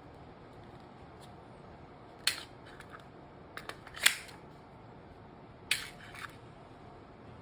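Handling of a Glock 17 MOS Gen 5 pistol: several short, sharp mechanical clicks in three small groups, the loudest about four seconds in.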